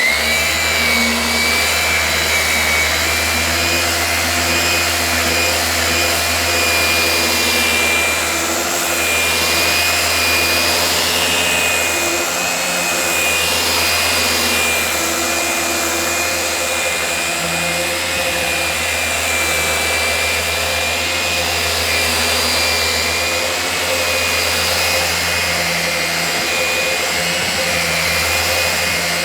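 Festool Rotex 150 sander running steadily in Rotex direct-drive mode, its 80-grit paper cutting through the stain on a maple table top, with a dust extractor drawing through it. A constant high whine sits over a low hum.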